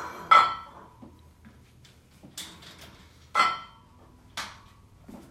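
Cast weight plates clanking against a steel barbell sleeve as 2.5 kg plates are slid on: four sharp, ringing metal clanks. The loudest come just after the start and about three and a half seconds in.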